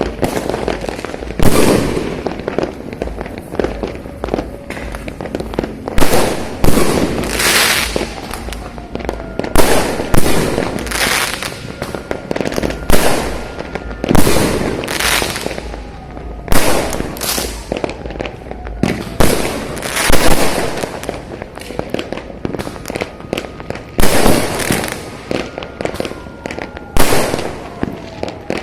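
Many fireworks going off across a city, one loud bang after another every second or two with crackling trails, near and distant bursts overlapping.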